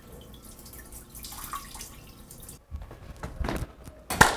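Water running and dripping, as from a restroom tap, then one sudden loud thump near the end.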